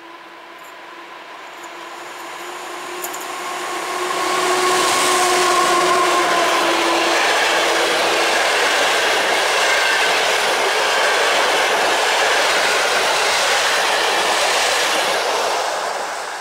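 EP09 electric locomotive hauling a passenger train approaching and passing over a bridge, with a steady whine from the locomotive. From about four seconds the coaches' wheels run loudly past with a clickety-clack, then the sound fades near the end as the train moves away.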